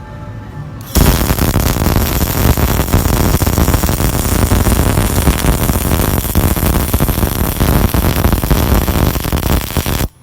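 MIG welding arc from an HF350 MIG welder: a loud, steady, dense crackle of the wire shorting into the weld pool, starting abruptly about a second in and cutting off just before the end.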